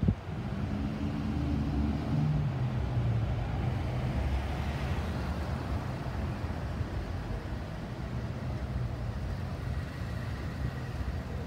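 Car driving slowly, heard from inside the cabin: a steady low engine and road rumble. A brief knock comes right at the start.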